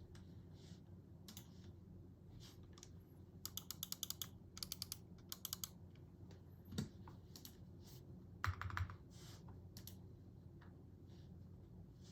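Typing on a QwertyKeys QK75N mechanical keyboard with pre-lubed Domikey x Glove x Haimu Choco Donuts switches on a flex-cut FR4 plate, under JKDK keycaps. Scattered keystrokes, with quick runs of presses about ten a second a few seconds in, and two deeper knocks near the middle and about two-thirds through.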